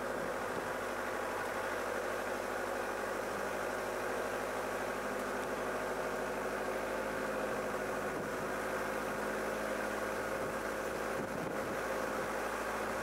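Vehicle engine running at a steady speed, a constant droning hum that neither rises nor falls.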